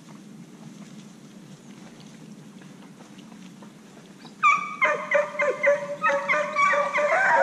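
Hunting dogs breaking into baying and yelping about four and a half seconds in, several voices overlapping. They are giving voice on the trail of a wild boar.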